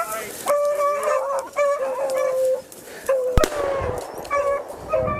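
Hunting beagles baying in a series of drawn-out, pitched calls, sometimes overlapping, the sound of hounds giving tongue on a rabbit's scent. A single sharp crack cuts in about three and a half seconds in.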